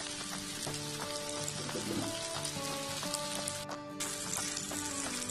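Diced potatoes, onion and tomato frying in oil in a pan, a steady crackling sizzle that breaks off for a moment about three and a half seconds in.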